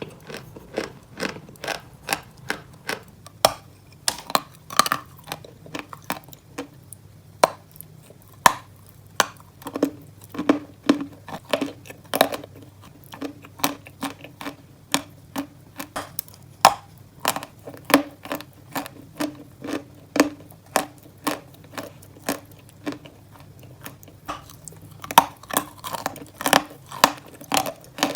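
Dry white Turkestan chalk being bitten and chewed: a steady run of sharp crunches, about two a second.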